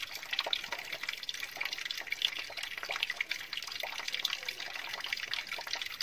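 Spring water running from a tank's pipe into a plastic container, a steady trickle with irregular small splashes.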